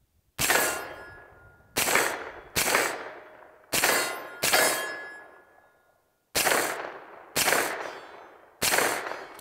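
Eight single shots from a Faxon Bantam 9mm pistol-calibre carbine, fired at an uneven pace roughly a second apart. Each shot trails off over about a second.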